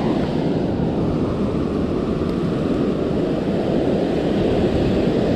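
Breaking surf at the water's edge with wind buffeting the microphone: a steady, low rushing noise.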